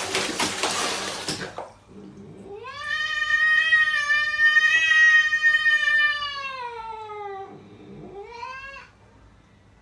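Water splashing in a plastic basin as a dog paws in it, then a cat's long drawn-out yowl lasting about five seconds, dropping in pitch at the end, followed by a shorter rising meow.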